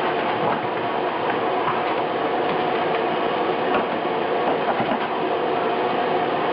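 Vacuum cleaner running steadily with a constant drone, with occasional small clicks.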